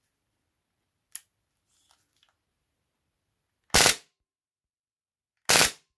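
Two short full-auto bursts from a Robocop Auto 9-style gas blowback airsoft pistol, loud, about two seconds apart, preceded by a faint click about a second in. The pistol is gassed but has no BBs loaded, so it is firing dry.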